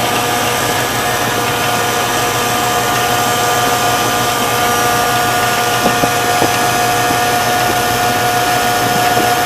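Pontiac 455 V8 engine running steadily at idle with a steady whine over it, its rocker arms freshly adjusted.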